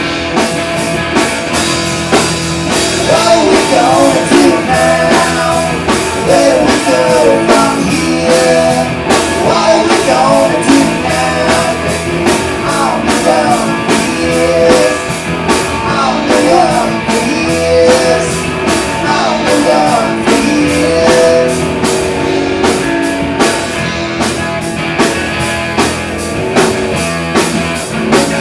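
Rock band playing live and loud: electric guitar, bass guitar and drum kit, with a wavering melody line over the top from about three seconds in until about twenty-two seconds.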